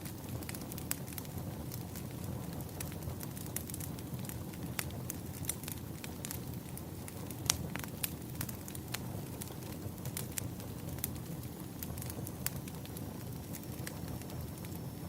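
Burning firewood crackling: irregular sharp pops and snaps over a low, steady rumble of the fire.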